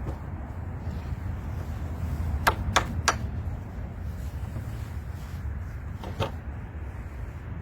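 Three sharp knocks in quick succession, then a single knock a few seconds later, over a steady low rumble: knocks on the ride's timber and fittings during work on its struts.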